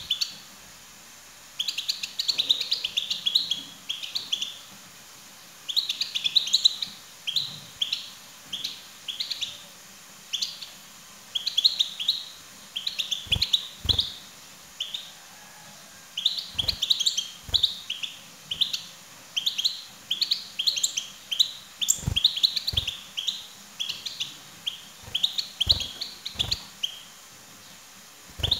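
European goldfinch twittering in bursts of rapid high chirps, each burst a second or two long with short pauses between. From about halfway on, soft low thuds come now and then.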